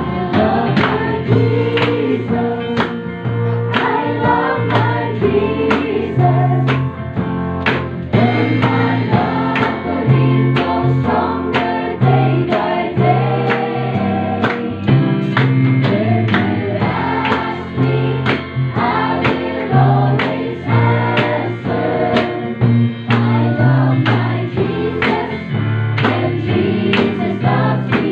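Mixed church choir of men and women singing a gospel worship song together through handheld microphones, over an instrumental accompaniment with a bass line and a steady beat.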